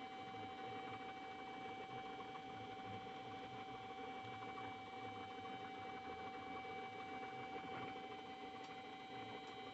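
Steady machine hum with a constant high tone and fainter higher tones above it, unchanging throughout, like a small electric motor running.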